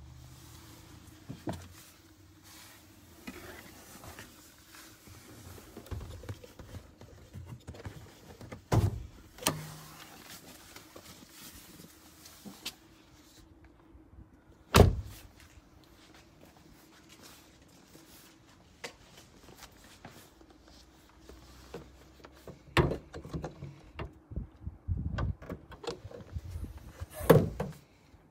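Volvo C30 door and bonnet being worked by hand: a series of separate clunks and knocks, the loudest about halfway through and a quick cluster near the end, over a faint steady hum.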